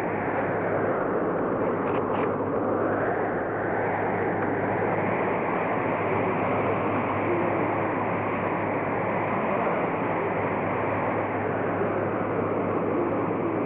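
Blizzard wind blowing steadily, swelling and easing in slow gusts.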